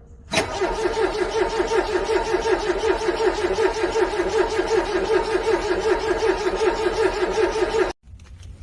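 A car's starter motor cranking a cold engine in a quick, even rhythm for about seven and a half seconds without it catching, then stopping abruptly. It is an engine struggling to start in freezing cold.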